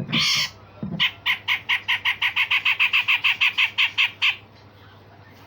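Grey-cheeked bulbul (cucak jenggot) giving a short rasping call, then a fast run of about seventeen harsh notes, roughly five a second, that stops a little past four seconds in.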